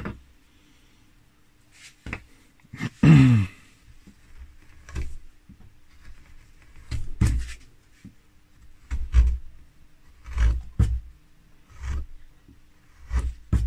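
Hand chisel cutting into a rather splintery piece of linden wood: about nine short scraping cuts a second or two apart, the loudest about three seconds in, over a faint steady hum.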